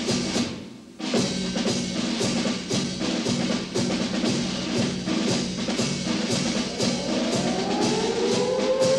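Military-band march music with a steady drum beat, about three beats a second. Near the end a held note rises in pitch.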